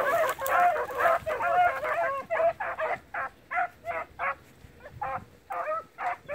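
A pack of hounds baying, many short bays overlapping at first, then thinning to separate bays, a few a second, after about three seconds.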